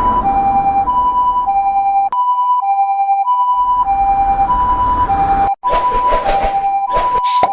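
Level-crossing warning alarm sounding a steady two-tone high-low alternation, switching about every half second. Under it a low rumble comes and goes, and harsh noise bursts come near the end.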